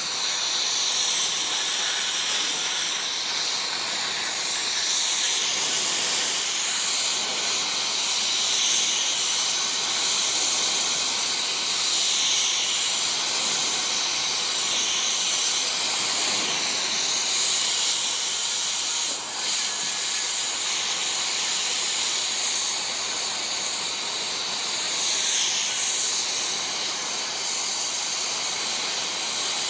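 Gas torch flame hissing steadily, heating the steel handle rod so it can be bent.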